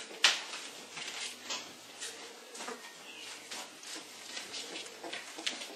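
Irregular light scratching and tapping of Laekenois puppies and their mother moving about in a whelping box, claws scrabbling on the floor and sides; the sharpest click comes just after the start.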